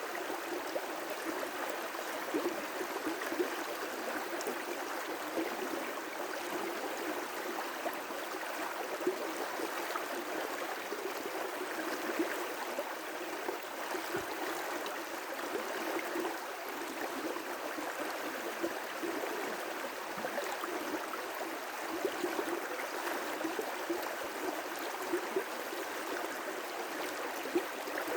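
River rapids: water rushing and churning over rocks in a steady, unbroken wash with small irregular splashes.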